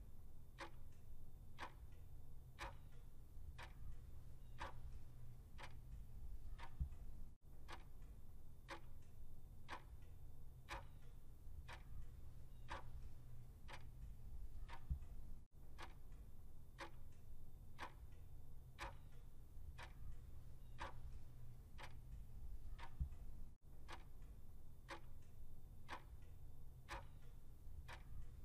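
Ticking-clock countdown sound effect: a steady run of evenly spaced ticks over a low hum, timing the seconds of a countdown.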